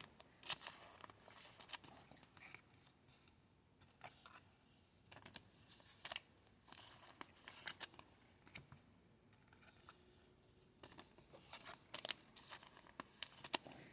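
Faint, scattered rustling and crinkling of football trading cards and their pack wrappers being handled, in short separate bursts.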